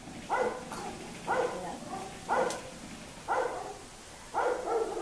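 A dog barking steadily, about one bark a second.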